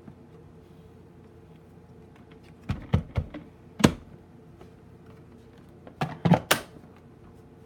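Knocks and clicks from a vacuum cleaner being handled after it has been switched off. They come in two short clusters, about three seconds in and again about six seconds in, over a faint steady hum.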